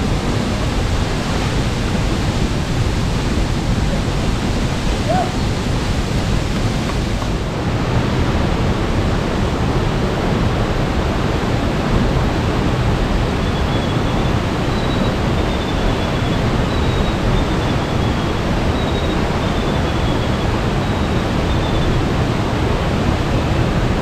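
Steady rushing noise of a waterfall, about 15 m high, plunging into its pool. From about halfway through, a few faint short high chirps sound over it.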